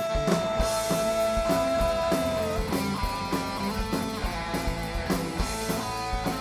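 Heavy metal band playing live: distorted electric guitars over a drum kit keeping a steady beat, with one long held high note through the first two and a half seconds.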